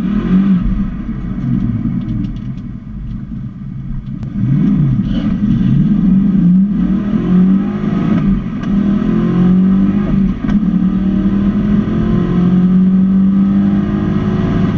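A 331 cubic-inch stroker small-block Ford V8 in a Fox-body Mustang, heard from inside the cabin, revving and accelerating hard on a drag-strip run. The engine pitch rises and drops several times in the first half, then holds high and steady over the last few seconds.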